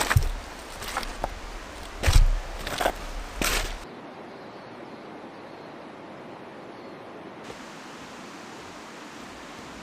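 A few sharp knocks and bumps against river stones in the first four seconds, then a steady rush of flowing river water.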